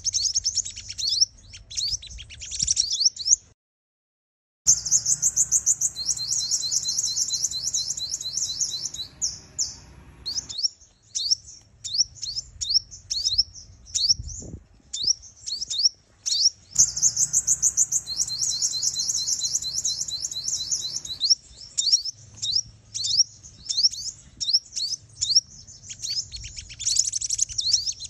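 Female sunbird calling: rapid, high twittering chirps and fast trills in repeated bursts, with a brief silent break about four seconds in.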